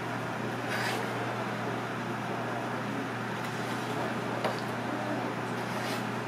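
Steady low machine hum under a haze of room noise, with a couple of faint clicks about a second in and again past four seconds.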